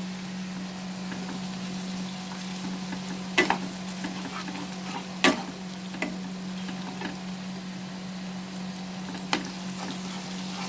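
Sliced onions and ginger garlic paste sizzling in hot oil in a pan while being stirred, with a few sharp knocks of the spatula against the pan, over a steady low hum. The paste is frying so that its raw smell goes away.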